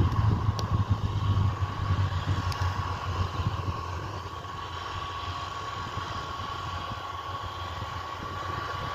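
Fendt Vario 720 tractor's diesel engine running under load while mowing grass with its front and trailed mowers: a steady drone with a constant high whine over it. It grows quieter over the first few seconds, then holds steady.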